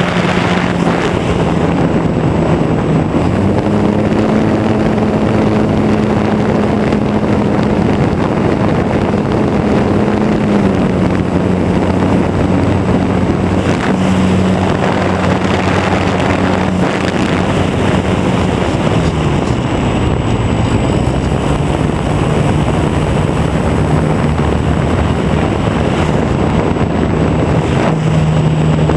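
Radio-controlled Super Cub model airplane's motor and propeller running in flight, recorded on board. The hum's pitch steps up and down a few times, and wind rushes over the microphone.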